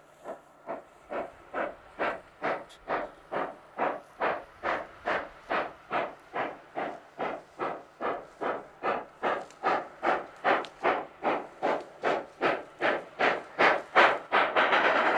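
Class 25NC 4-8-4 steam locomotive working hard, its exhaust chuffing in steady beats about two and a half a second and growing louder as it approaches. Near the end a continuous hiss of steam builds under the beats.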